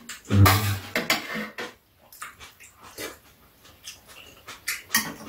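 Eating sounds close to the microphone: chewing and smacking, with chopsticks and a spoon clicking against ceramic bowls several times. A short low thump about half a second in is the loudest sound.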